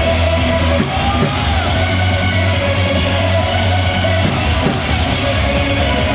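Loud rock-style cheer song with guitar, with voices yelling and singing along.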